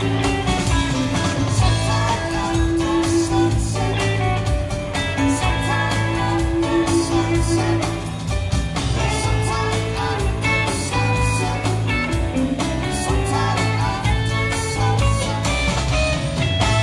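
Background music: a guitar-driven blues-rock track with a steady drum beat, possibly with a sung voice.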